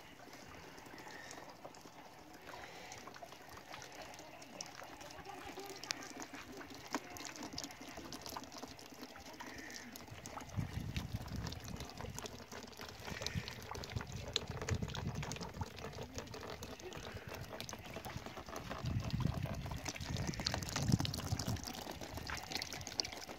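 Juice from cooked sugar beets trickling and pouring off a cloth sack squeezed in a wooden beam press into a plastic basin, with fine dripping throughout. Low rumbling joins from about halfway through.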